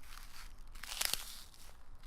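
A footstep crunching through the ice of a frozen puddle, with sharp crackling of the ice about a second in.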